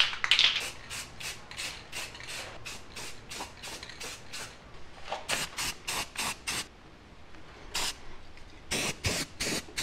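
Aerosol spray-paint can hissing in many short bursts, about four a second at first, then in shorter groups after a pause partway through.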